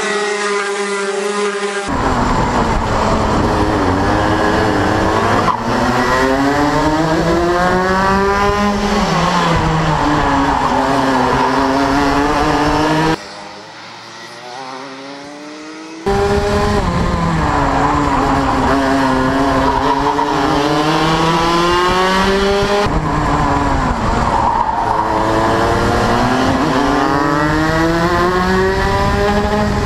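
Racing kart engine running close to the microphone, its pitch rising and falling again and again as the kart speeds up and slows for corners. For about three seconds near the middle it drops to a quieter, more distant sound, then returns close and loud.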